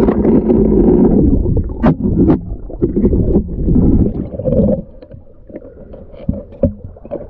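Muffled underwater rumbling and bubbling, heard through a camera held under river water, until nearly five seconds in, when the camera breaks the surface and the sound drops to quieter small splashes and ticks of water.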